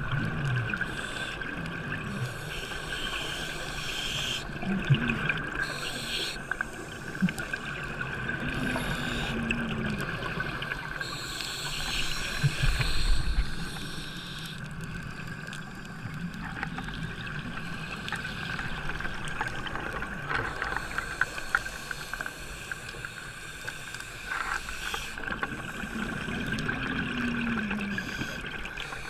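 Underwater audio of scuba breathing: a diver's regulator hissing and bubbling in cycles of a few seconds, each exhalation carrying a low wavering tone, over a steady high hum.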